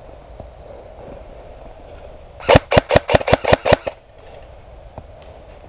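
Airsoft electric rifle firing a quick string of about ten shots in just over a second, each a sharp crack.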